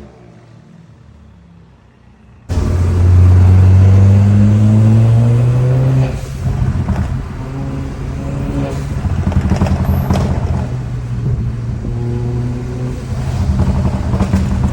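Suzuki Swift Sport's turbocharged four-cylinder engine through a full straight-through exhaust. It runs quietly for about two and a half seconds, then abruptly becomes much louder with a deep exhaust drone whose pitch slowly rises as it is revved. After that it is held at raised revs, with the pitch rising and falling.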